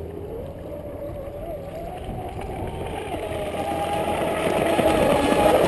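Brushless electric RC speedboats running fast on the water: a motor whine with overtones that wavers in pitch and grows steadily louder as the boats come closer.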